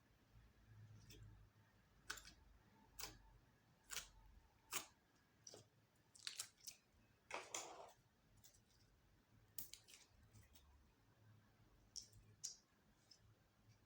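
Slime being mixed by hand: faint, irregular sticky clicks and pops as it is pressed and pulled, with one longer squelch about seven seconds in.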